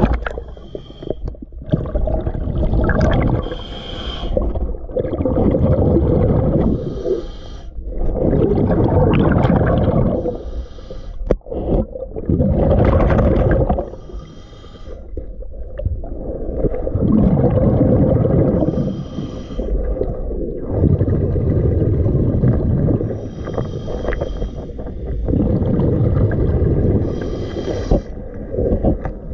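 Diver breathing underwater through a regulator: a rush of exhaled bubbles, with a hiss of inhaling between, repeating every four to five seconds.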